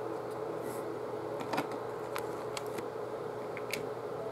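Several faint, short clicks and taps of plastic LEGO minifigure parts being handled in the fingers, over a steady low hum of room noise.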